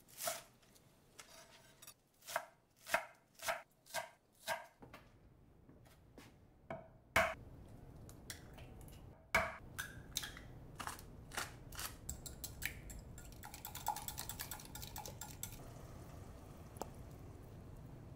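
A chef's knife chopping green onions on an end-grain wooden cutting board, about two strokes a second for several seconds. Then two sharp cracks as two eggs are broken against a glass measuring cup, followed by a quick run of light clicks as the eggs are beaten in the glass, over a low steady background noise.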